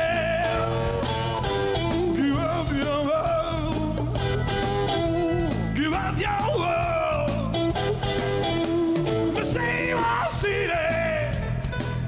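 Rock band playing live: a man singing lead over electric guitars and drums.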